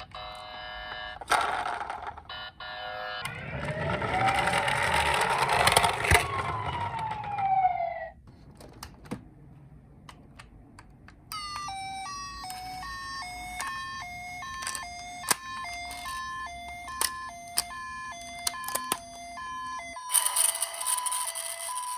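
Toy ambulances' electronic sirens sounding one after another: a short tone pattern, then a siren sweeping up and down for a few seconds. After a pause with a few clicks, a two-tone high-low 'pee-po' ambulance siren alternates steadily for about eight seconds, and another siren starts near the end.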